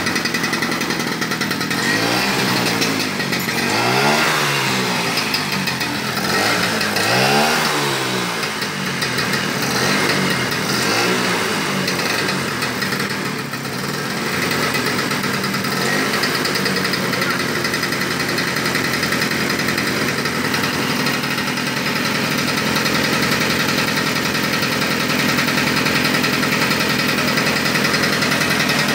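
Vespa scooter engine running, revved up and down several times over the first dozen seconds, then running steadily.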